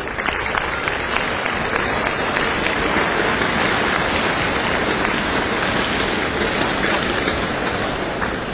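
Audience applauding: a steady patter of many hands clapping that eases off slightly near the end.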